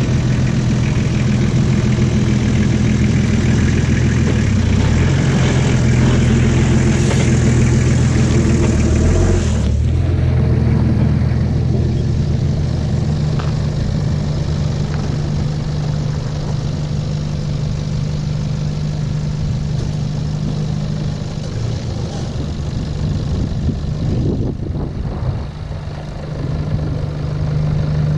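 4WD vehicle engine running steadily at low revs. About ten seconds in the hiss over it drops away suddenly, leaving a steadier low engine note.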